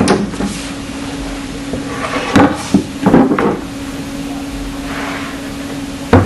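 Plywood crate panels being handled: a few sharp wooden knocks and short clatters, one near the start, a cluster between about two and three and a half seconds in, and one at the end, over a steady low hum.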